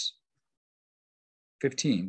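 A man speaking briefly at the start and near the end, with about a second and a half of dead silence between.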